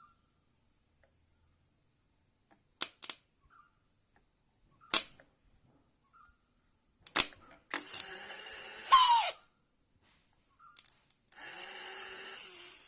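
Rebuilt Bajaj Pulsar 135 LS motorcycle starter motor bench-tested after a brush replacement: a few sharp clicks, then the motor spins up with a high whine twice, each run about a second and a half, the first dropping in pitch as it stops. It runs freely, working properly.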